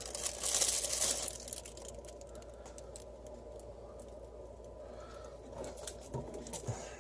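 Plastic film being peeled off a microwaved lasagna tray: a burst of crinkling and tearing in the first second, then fainter scattered crackles and clicks.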